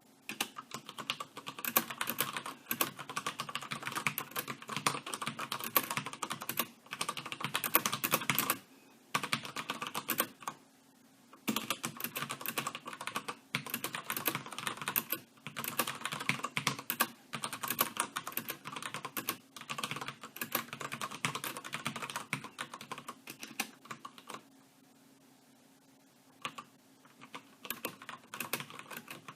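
Fast typing on a Logitech G610 Orion Brown mechanical keyboard with Cherry MX Brown switches: a dense clatter of keystrokes with a few short pauses and a two-second break past the middle. Near the end the typing turns sparser and slower.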